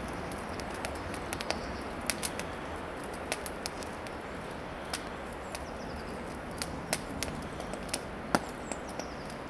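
Campfire crackling: the thin twigs piled on the flames snap and pop in sharp, irregular clicks over a steady hiss.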